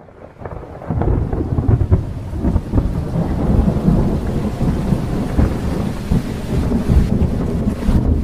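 Thunderstorm sound effect: deep rolling thunder rumble with rain hiss, fading in from silence over about the first second, then continuous.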